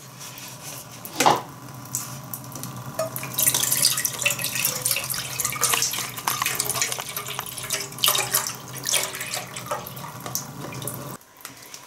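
Milk pouring from a paper carton into an enamel pot, a steady liquid splashing with small clicks that stops about a second before the end. A sharp click about a second in, as the carton is opened.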